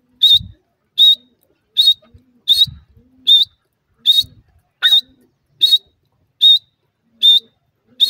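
Grey francolin calling: one sharp, high note with a slight pitch wiggle, repeated loudly and evenly about every three-quarters of a second.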